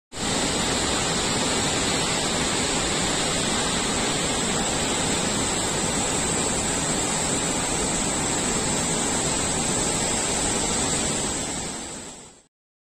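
Water released through a dam's spillway rushing downriver as churning whitewater, the monsoon-swollen river being let out: a steady, loud rush that fades out near the end.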